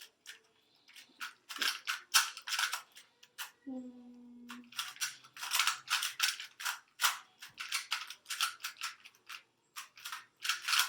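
Quick irregular runs of plastic clicks as the layers of 2x2 Rubik's cubes are turned fast during a speed-solve. About four seconds in, someone hums briefly.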